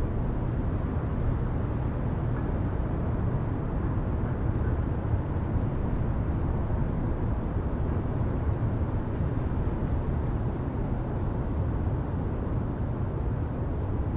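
City street ambience: a steady low rumble of traffic, with no single sound standing out.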